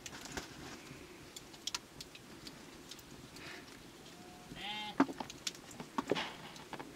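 Light clicks and taps of forest mushrooms being torn by hand and dropped into a metal cooking pot, the sharpest taps about five and six seconds in. A brief wavering call sounds about four and a half seconds in.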